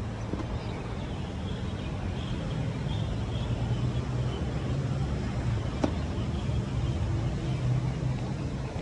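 City street traffic: a steady low hum of passing cars and engines, with a single sharp click about six seconds in.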